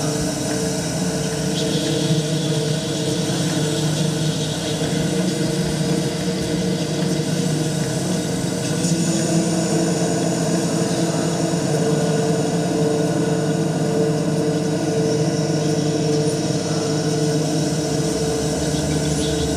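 Sound score of a stage dance piece: a steady, unchanging drone of several held low tones over an even hiss.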